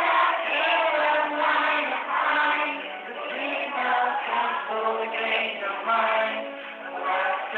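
A man singing into a handheld microphone over a musical accompaniment. The song comes in loudly right at the start.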